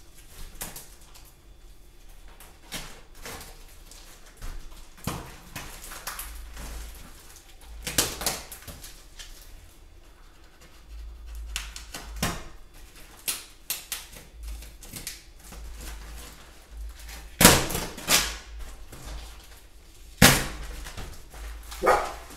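A large taped-up shipping box being cut and torn open: irregular rips, crackles and knocks of packing tape and wrapping, with the loudest rips in a cluster late on.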